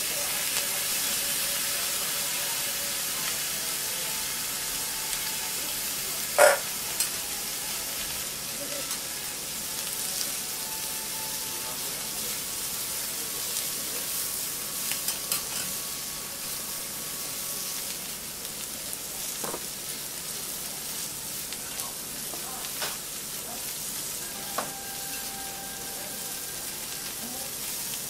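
Noodles and cabbage sizzling steadily on a hot steel teppan griddle, with a few sharp clicks of metal spatulas against the plate, the loudest about six seconds in.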